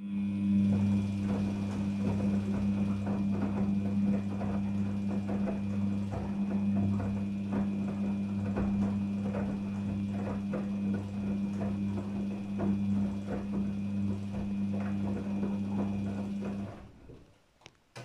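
Daewoo DWD-FT1013 front-loading washing machine turning its drum during a cotton wash: it starts abruptly with a steady hum while the wet laundry falls and knocks irregularly inside the drum, then stops near the end.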